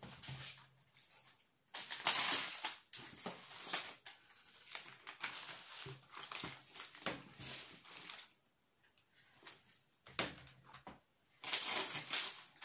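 Foil and plastic food packets crinkling and rustling as they are handled and dropped into a wicker basket. The rustling comes in spells with short quiet gaps.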